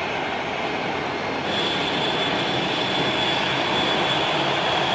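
Jet airliner engines running loud: a steady roar, with a high whine joining about a second and a half in and the noise building slightly.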